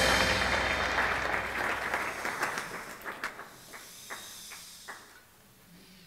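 Audience applause dying away, thinning out into a few scattered single claps before it stops.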